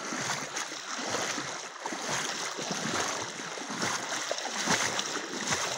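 Shallow river water running and splashing, with many small uneven splashes.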